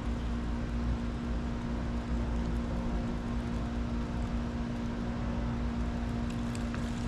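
A steady mechanical hum with a constant low rumble underneath, unchanging throughout.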